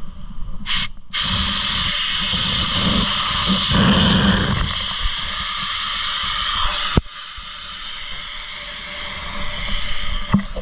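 Air hissing out of the open valve of an inflatable stand-up paddleboard as it is deflated for packing. A loud, steady hiss starts abruptly about a second in, drops sharply about seven seconds in, and continues more weakly.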